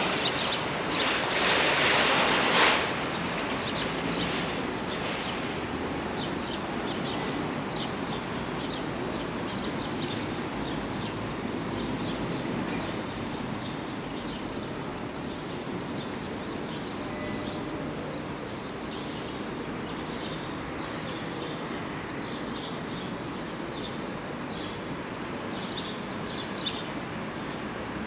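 Outdoor city ambience while walking: a steady low hum of traffic with many short bird chirps scattered throughout. A louder rush of noise fills the first couple of seconds, then it settles to the even background.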